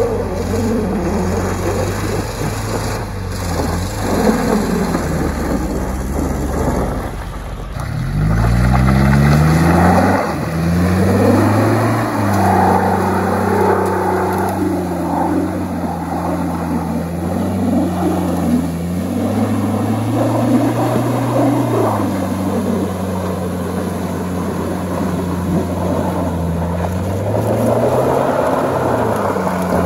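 4WD SUV engines revving hard while doing wheelspins and skids through mud and gravel. For the first eight seconds or so an engine holds fairly steady revs; then an engine revs up sharply and is held high, its pitch rising and falling with the throttle.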